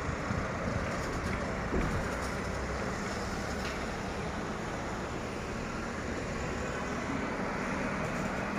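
Steady road traffic noise: an even hum of passing vehicles with no distinct events.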